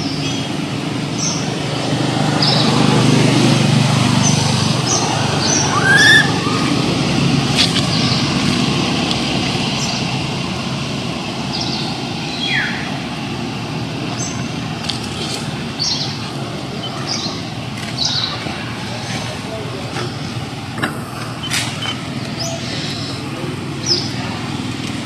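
Outdoor ambience: scattered short, high bird chirps over a steady low hum, with a brief rising call about six seconds in.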